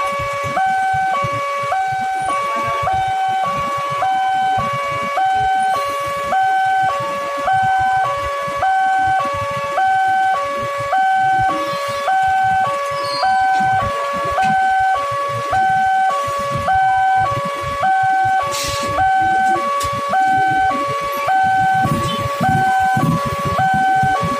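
Railway level-crossing warning alarm sounding a steady two-tone electronic ding-dong that repeats about once a second. Under it runs the low rumble of a KRL electric commuter train passing over the crossing.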